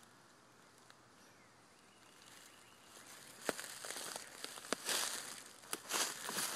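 Footsteps crunching and rustling through dry leaf litter and low brush on a woodland floor, with a few sharp snaps. The steps start about halfway through after a quiet stretch and grow louder.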